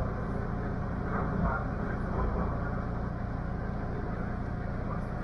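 TTC Bloor line subway train running through a tunnel, heard from inside its front car: a steady rumble of wheels on rail with a few light clanks.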